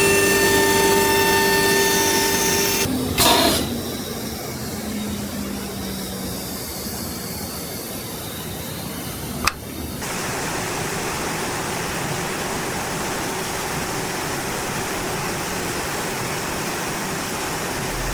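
CNC arc bending machine running: a steady whine for about three seconds that stops with a loud clank, a sharp click a few seconds later, then steady machine noise.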